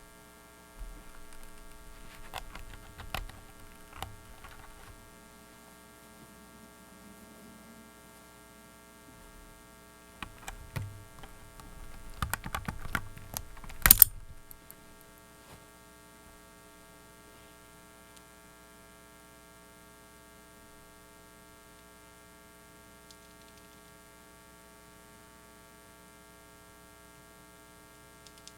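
Steady electrical hum with many overtones, the noise of a faulty microphone, under keypresses on a mechanical keyboard. Scattered key clicks come in the first few seconds, then a fast flurry of clacks that ends in one loud clack about halfway through. The hum goes on alone after that.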